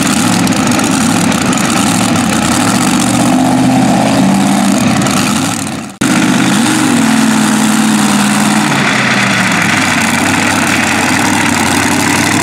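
Multi-engine modified pulling tractor's supercharged engines idling steadily, with a short rev that rises and falls just after the midpoint.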